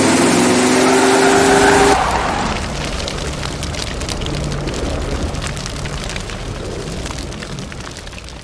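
Car sound effect: tires screech for about two seconds, then a car engine runs and slowly fades out.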